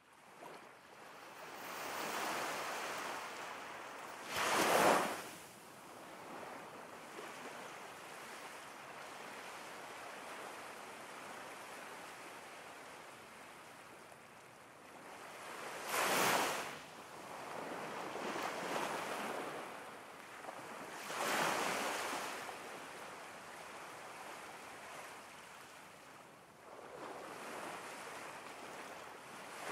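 Ocean surf: a continuous wash of waves that fades in at the start, with several louder breakers swelling and ebbing, the strongest about five seconds in.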